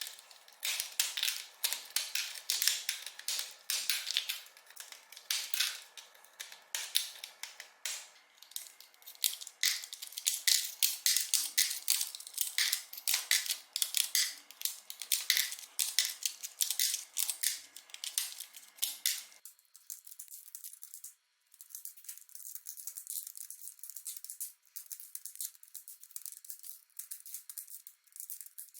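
Hand work on a mechanical keyboard's parts: a fast, irregular run of scratchy scraping strokes and small clicks on hard plastic. About nineteen seconds in, the sound suddenly turns fainter and thinner.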